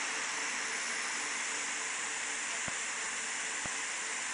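Pulsed dye laser treating cherry angiomas: a steady hiss, with faint sharp clicks about once a second from a little past halfway as the laser pulses fire.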